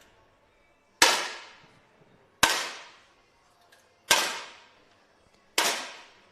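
Four 10 m air rifle shots, each a sharp crack about a second and a half apart, fading with a short echo.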